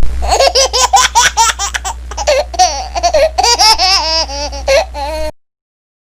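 High-pitched laughter in a quick run of giggles, with a low hum under it; it cuts off abruptly about five seconds in.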